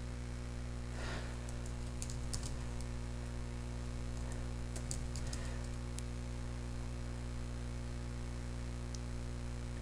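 Computer keyboard keys clicking faintly as a short word is typed, scattered through the first few seconds with a last click later on, over a steady electrical hum.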